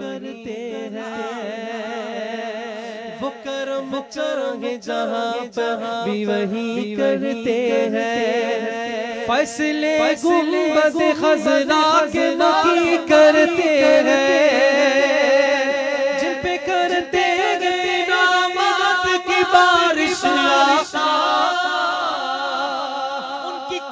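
Voices singing a devotional Urdu naat in long, drawn-out melodic lines.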